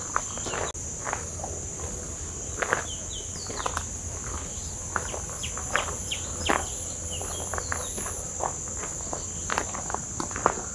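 Footsteps on a gravel path, over a steady high-pitched drone of insects. A few short, high chirps come about three to four seconds in.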